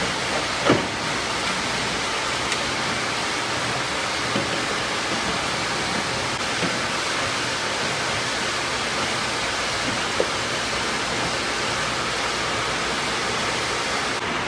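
Light knocks and taps of a window air conditioner's fan motor being handled into its sheet-metal bracket, the loudest about a second in and another near the end, over a steady rushing noise with a low hum.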